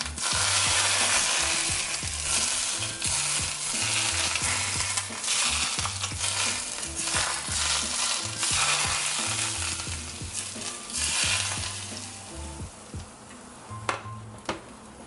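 Smoking-hot oil poured over a steamed moi dressed with ginger, cilantro and shoyu–oyster sauce, sizzling and crackling as it hits the herbs and sauce. The sizzle dies down about twelve seconds in.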